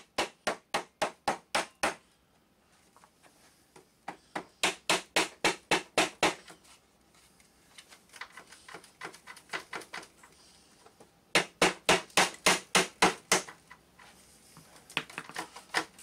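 Rubber mallet striking the wheel of a Veteran Sherman electric unicycle. The blows come in quick volleys of about four a second, with pauses between them; the loudest volley falls past the middle and the last blows are weaker.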